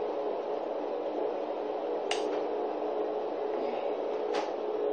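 A steady electrical hum with two short clicks, about two seconds apart.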